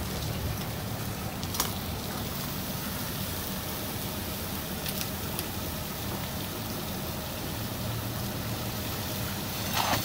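Steady hissing and sizzling from the smoking, burning 2003 GMC Yukon as it is worked by firefighters, over a low engine drone, with a few sharp snaps.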